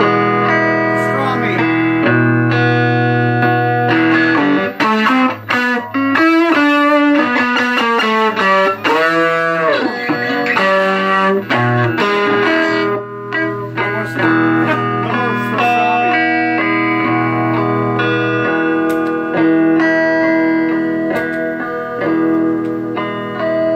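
Electric guitar played through a hand-built Parks Deluxe Blues Howler tube amp, a circuit with an EF86 pentode first preamp stage and octal power, rectifier and preamp tubes. It plays sustained notes and chords, with a run of notes that bend up and back down in pitch about halfway through.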